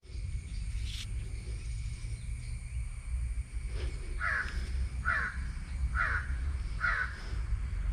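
A crow cawing four times, about one caw a second, over a steady low rumble.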